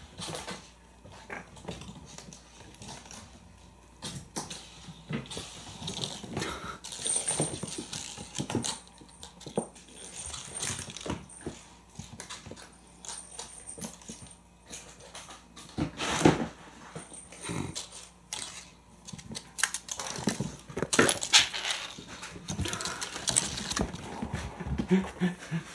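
Kittens playing on a hardwood floor: paws scampering and small toys knocked about, in scattered light knocks and skitters, with a few louder knocks in the second half.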